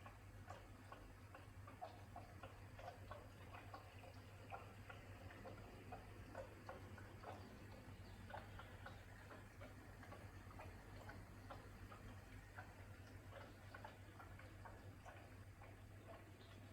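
AEG dishwasher running its prewash, faint: a steady low hum with many irregular light ticks, several a second.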